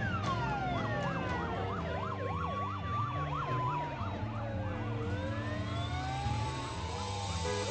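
Sirens wailing and yelping, several overlapping, their pitch sweeping up and down with fast rises and falls in the first few seconds.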